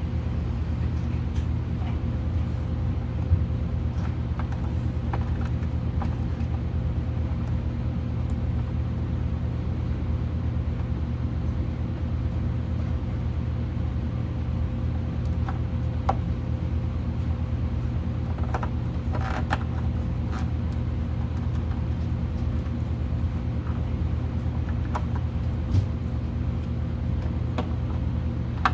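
A steady machine hum, with occasional light clicks and clinks from hand work.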